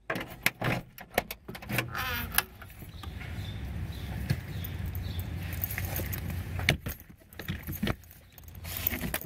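Bags and luggage being loaded into a car's trunk: a run of sharp clicks and knocks with metallic jingling from buckles and straps, then a steady low rumble in the middle, and more knocks near the end as the bags are set down.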